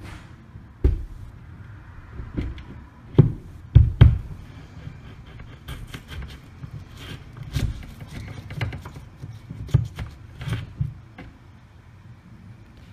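Irregular knocks and thumps in the wall as a screwdriver is pushed and worked through it from the other side, making a hole for new thermostat wire. The loudest knocks come about three to four seconds in.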